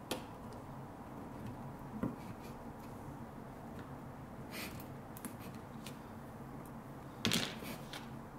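Faint clicks and rustles of stripped solid copper wires being bent and bunched together by hand, with a louder cluster of clicks near the end.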